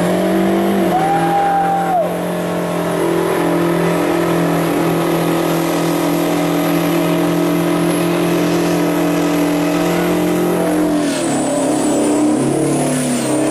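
The Bandag Bullet burnout truck's engine is held at high, steady revs while its rear tyres spin and smoke, an even engine note over tyre noise. A brief higher whine comes about a second in, and the revs drop and waver about eleven seconds in.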